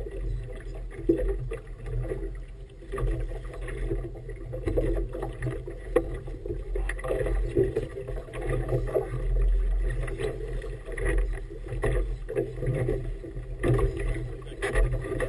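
Choppy water slapping unevenly against the hull of a rigid inflatable boat, over a steady low rumble.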